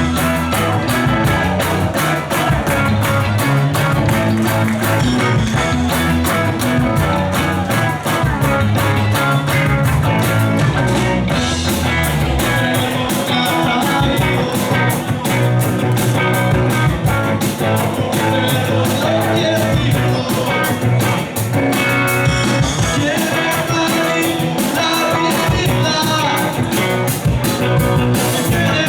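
Live rock band playing with a steady drum beat and electric guitar.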